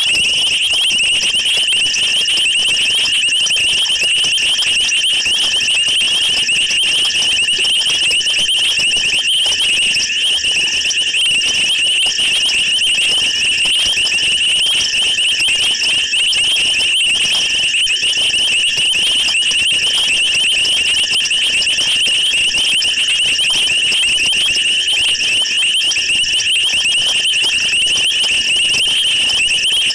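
A dense night chorus of insects trilling steadily at a high pitch.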